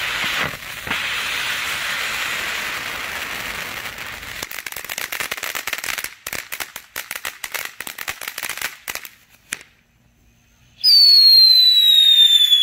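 Ground fountain firework hissing as it sprays sparks, then crackling with rapid pops for several seconds. After a short lull it gives a loud whistle that slides steadily down in pitch near the end.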